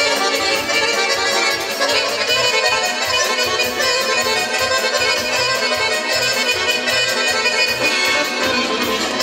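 Traditional Balkan kolo dance music: an accordion-sounding lead melody over a steady beat, played without break.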